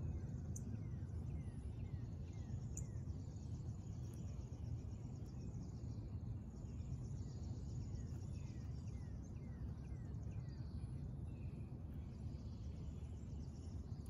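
Outdoor backyard ambience: a steady low rumble, with faint small birds giving short falling chirps over and over and a fast, high trill.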